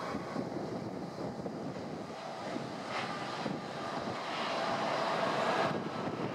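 Embraer 190 jet airliner's twin CF34 turbofan engines on final approach to landing: a continuous jet roar that grows louder over the last couple of seconds as the aircraft nears touchdown, then eases slightly near the end.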